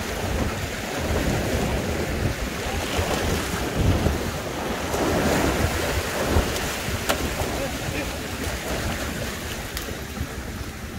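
Sea waves surging and washing over a rocky shoreline ledge, with wind buffeting the microphone.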